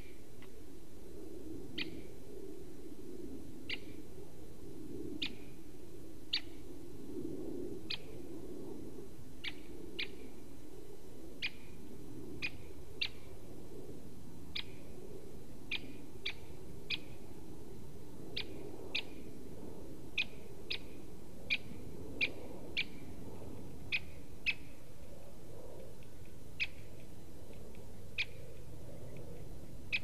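Great spotted woodpecker calling: short, sharp single "kik" notes, irregularly spaced at about one a second, over a steady low hum.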